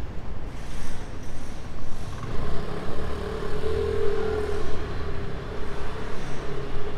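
Road traffic with vehicles running. From about two seconds in, one vehicle's steady engine drone stands out, loudest around the middle and fading near the end.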